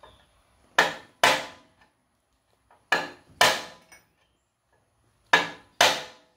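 Hammer tapping on a screwdriver set in a screw of the tractor's sheet-metal fan shroud: six sharp metallic strikes in three pairs, trying to break loose a rusted screw.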